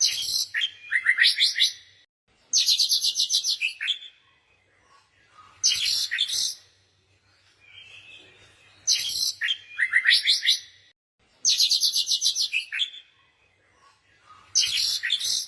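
A bird chirping in quick phrases of rapid, repeated high notes, a new phrase about every three seconds, with softer calls in the gaps between them.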